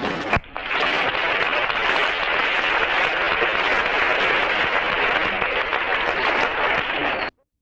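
A click, then a steady hiss of noise on the old film's soundtrack with no clear tones, which cuts off abruptly near the end.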